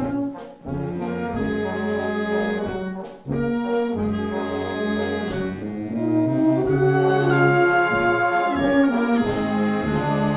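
Wind band (Blaskapelle) playing sustained brass chords over a tuba bass. The band breaks off briefly twice, about half a second and about three seconds in, and plays louder from about six seconds.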